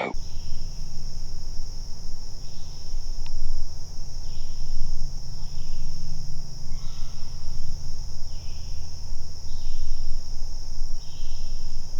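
Insects droning steadily in a high, even chorus, with a shorter call repeating about every second and a half, over a steady low rumble.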